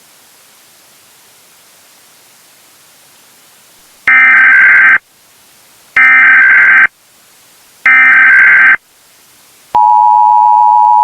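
Emergency Alert System SAME header: three loud bursts of digital data tones, each about a second long and a second apart, begin about four seconds in after faint hiss. Near the end the steady EAS two-tone attention signal (853 and 960 Hz together) starts. The sequence opens a broadcast emergency alert, here for a tornado emergency.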